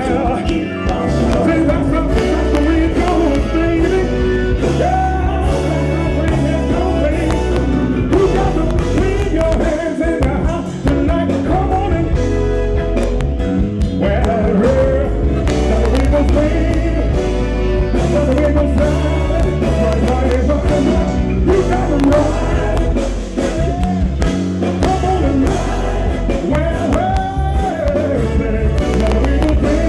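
R&B/funk band playing live, with a steady heavy bass line and melodic lines bending above it.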